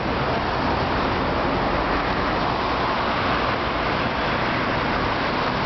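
Steady street ambience of road traffic, a continuous rumble and hiss with no distinct events.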